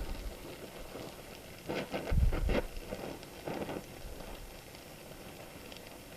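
Gas welding torch flame hissing steadily as it melts steel and filler rod, with a few dull knocks between about two and four seconds in.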